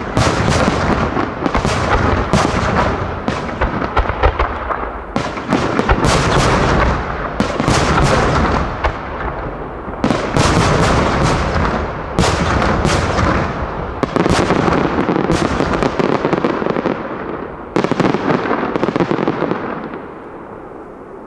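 Aerial firework shells bursting in a rapid barrage, one sharp boom after another with the echoes running together. The bursts thin out and die away near the end.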